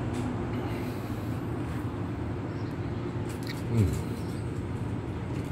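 Steady low hum of street traffic and machinery. About four seconds in, a brief louder sound slides down in pitch.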